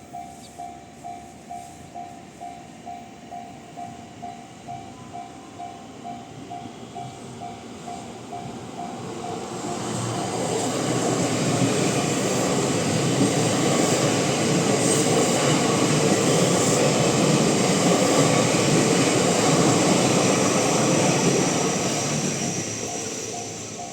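Level-crossing alarm ringing with the JR standard electronic bell tone, about two strokes a second. From about eight seconds in, an eight-car JR 225 series 100 subseries electric train approaches and passes over the crossing. Its wheels and motors drown out the alarm for about twelve seconds, then fade, and the alarm is heard again near the end.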